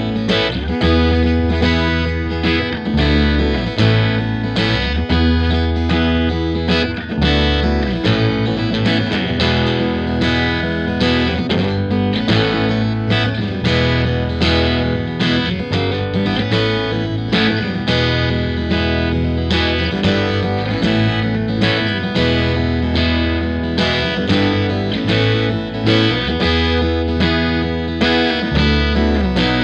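Background rock music with distorted electric guitar over a steady beat.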